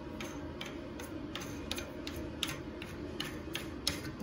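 Plastic nut being spun by hand onto the threaded plastic shank of a toilet fill valve under the tank: a run of light, irregular clicks, about three a second.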